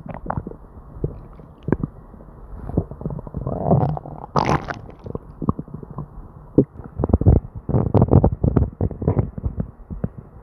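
Human stomach and bowels gurgling and rumbling in many short, irregular pops and bubbles, with a louder gurgle about four and a half seconds in and a dense run of gurgles from about seven to nine seconds. These are the hyperactive bowel sounds of an upset stomach with diarrhea.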